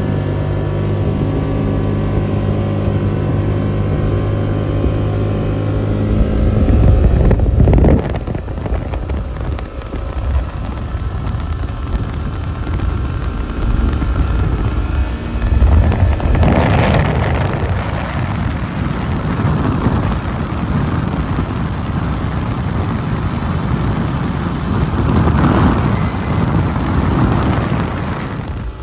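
A motor vehicle's engine running steadily. About seven seconds in it turns into a louder, rougher rushing sound, which swells again around the middle and near the end.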